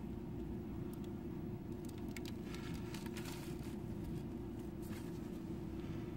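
Steady low background hum, with faint rustles and light clicks between about two and five seconds in from a hand handling a ring and slipping it onto a finger.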